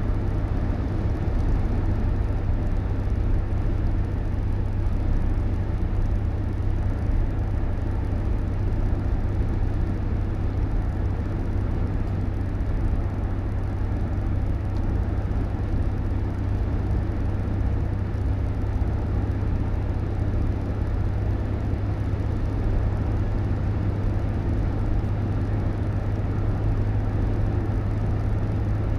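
Steady low rumble of a moving vehicle: engine and road noise, even throughout with no breaks.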